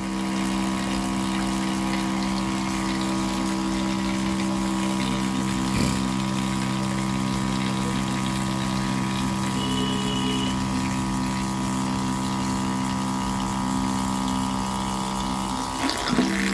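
A 12 V DC dual-motor diaphragm pump runs with only one of its two motors connected, giving a steady electric hum. It is pumping water at free flow, with no nozzle and unpressurised, from its outlet into a plastic bottle. The hum wavers briefly near the end.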